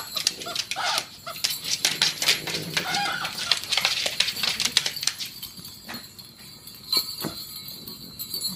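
Two small dogs, a pug among them, scuffling over a plush toy: paws scrabbling and bodies scuffing on a hardwood floor, busy for the first five seconds or so, then sparser with a few sharp clicks.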